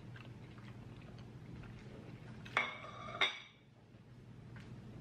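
Faint chewing of noodles, then two sharp clinks of tableware about half a second apart, a little past halfway, as the chopsticks and plate are put down.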